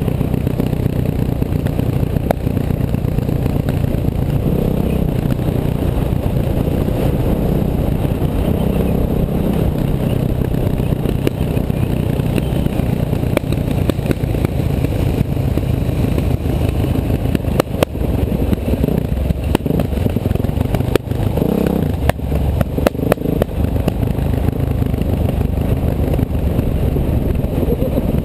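Bulldozer engine running steadily and loud, with a run of metallic clanks and scraping a little past the middle.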